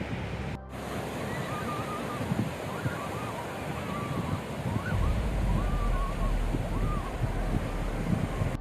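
Ocean surf washing onto a beach, with wind buffeting the microphone as a low rumble that grows heavier about halfway through.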